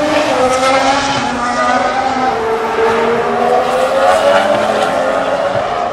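A 2015 Formula One car's turbocharged V6 hybrid engine running past at racing speed, its note falling and then climbing again.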